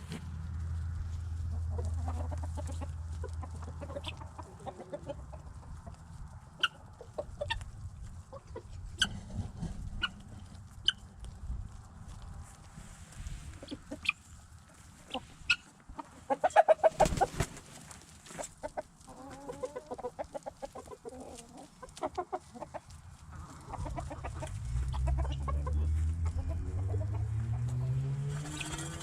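Backyard chickens clucking and calling, with one loud squawk about two-thirds of the way through. A low hum rises in pitch near the end.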